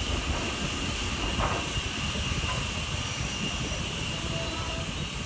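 Wind buffeting a phone microphone, mixed with the steady hiss and rumble of S15 steam locomotive No. 506 moving slowly alongside the platform.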